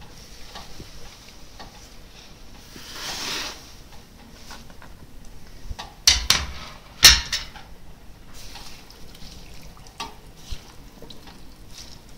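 Kitchen utensils on cookware: a soft brush of noise about three seconds in, then two sharp knocks about a second apart, with light scattered taps and scrapes of a metal spoon stirring soup in an enamel pot.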